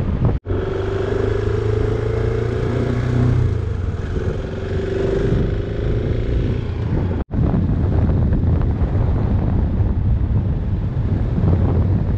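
Husqvarna 701 single-cylinder dual-sport motorcycle running at a steady cruise on a gravel road, with wind noise on the microphone. The sound drops out for an instant twice, about half a second in and about seven seconds in.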